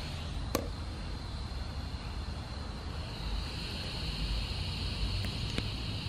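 Low steady rumble with a hiss that swells slightly in its upper part about halfway through, and a single sharp click about half a second in.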